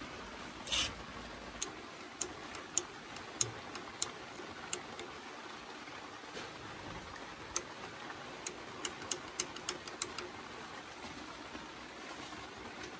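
Light, sharp ticks. They come about every half second for a few seconds, stop, then return as a quicker run near the end, over a faint steady hiss.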